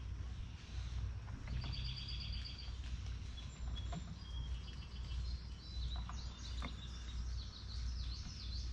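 Small songbirds calling: a quick run of rapid high notes about two seconds in, then scattered chirps and a series of down-slurred notes near the end, over a steady low rumble.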